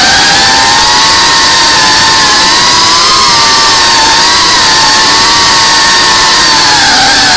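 FPV quadcopter's brushless motors and propellers whining loudly, heard from the camera on the drone itself, the pitch wavering up and down as the throttle changes, over a steady rush of propeller wash.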